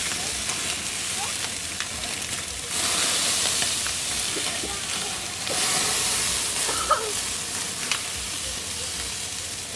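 Chicken leg quarters and wings sizzling on a gas grill over flaring flames, a steady hiss that swells twice. A couple of sharp clicks come near the end.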